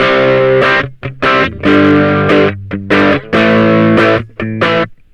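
Ibanez GAX30 electric guitar played through two stacked overdrive pedals: distorted chords struck in a series of short stabs with brief gaps, cutting off just before the end.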